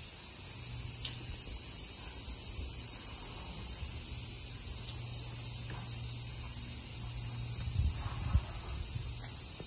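Cicadas droning in an unbroken high chorus. A low steady hum lies underneath, and a couple of soft thumps come about eight seconds in.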